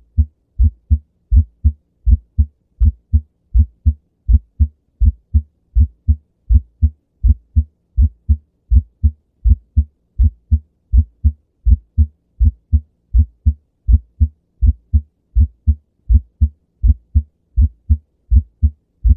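Heart sounds with a split first heart sound (S1): a regular run of short, low thuds, about three a second.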